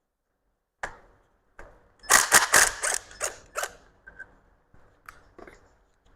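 Hand ratchet wrench loosening a bolt: a single click, then a quick run of sharp ratcheting clicks about two seconds in, then a few fainter clicks.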